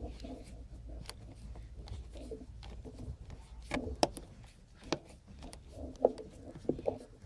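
A long screw being backed out of a vehicle door panel with a screwdriver: scattered light clicks and knocks, with a few sharper ones in the second half, over a low steady hum.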